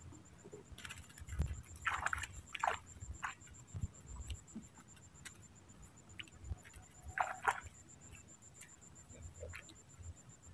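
Faint, scattered splashes and drips of lake water as a mesh fish keep net is lifted out of the shallows and lowered back in, with a steady faint high-pitched whine underneath.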